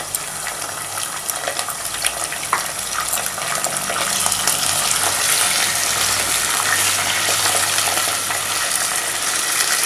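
Mutton pieces sizzling as they fry in hot oil with golden-fried onion and whole spices, a steady crackling hiss that grows louder about four seconds in.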